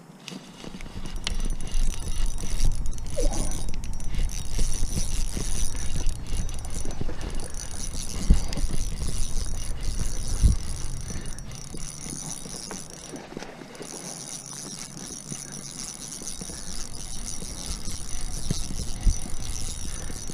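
Fishing reel being cranked during a retrieve, a steady mechanical whirring with handling knocks, over a high steady whine that cuts out twice.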